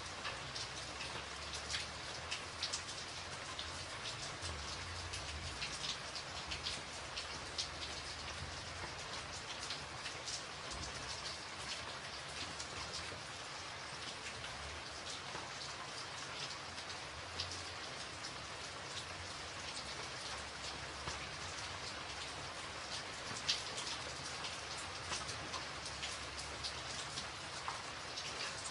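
Steady rainfall: an even hiss with many distinct drops pattering throughout.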